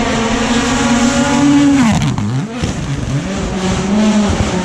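Rally car engine under hard load, revs held high, then cut sharply about two seconds in. Several quick downshift blips and dips in pitch follow before the revs climb again.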